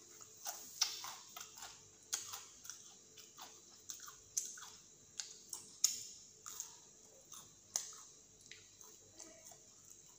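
A person chewing small fried snack bites, with irregular sharp crunches and mouth clicks about twice a second.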